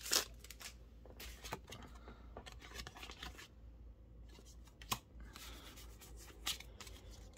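Foil booster-pack wrapper crinkling briefly at the start, then soft handling of Pokémon trading cards as they are slid out of the pack and fanned, with a few sharper card snaps, the clearest about five seconds in.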